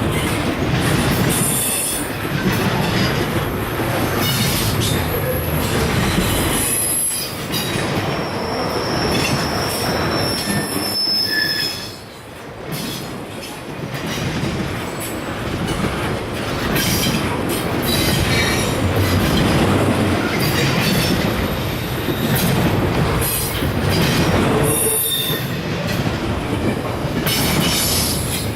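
Freight train cars rolling past at close range, their steel wheels rumbling and clattering on the rails. High-pitched wheel squeal comes and goes, the longest stretch lasting a few seconds near the middle.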